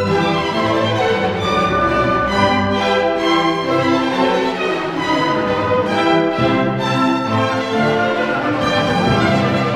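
Orchestral music with bowed strings and violin carrying a sustained melody.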